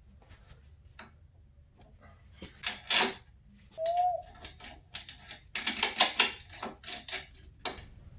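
Metal clicking and rattling of a roller chain and steel sprocket being handled and fitted into a snowmobile chaincase: a few sharp clicks, a short squeak about four seconds in, then a dense burst of clinking rattles in the second half.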